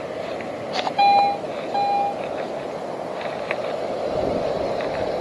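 Metal detector giving two short, steady electronic beeps about a second apart while checking a scooped-out pile of sand for the coin target, over a steady background rush.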